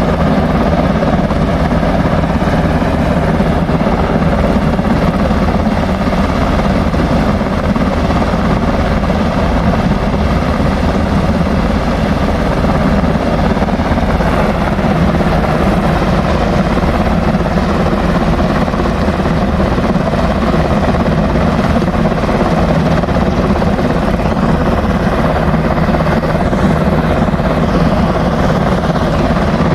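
Helicopter running close by: a loud, steady rotor and turbine noise that holds the same pitch and level throughout.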